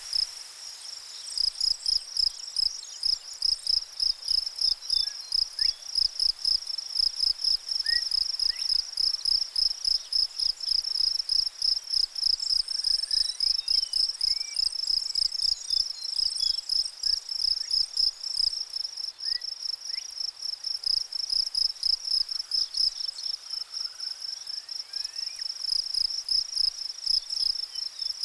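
Insect song: a loud, high-pitched chirping pulsed steadily several times a second, typical of a cricket or cicada, with a few faint short rising whistles in the background.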